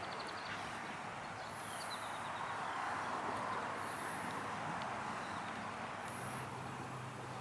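Outdoor ambience: a steady hiss of distant vehicle noise, with a few short bird chirps in the first couple of seconds and a faint high buzz that pulses about every two seconds. A low steady hum comes in about six seconds in.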